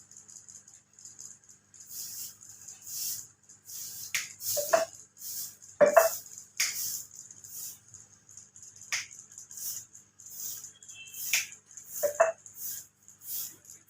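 Hands working a head massage: repeated short brushy rubs of fingers through the hair and scalp, broken by a few louder sharp slaps on the head.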